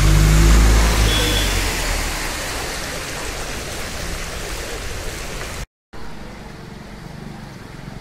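A low engine rumble that fades over the first two seconds, over a steady rushing hiss of outdoor noise. The sound cuts out for a moment about two-thirds of the way through, then comes back quieter with a faint low hum.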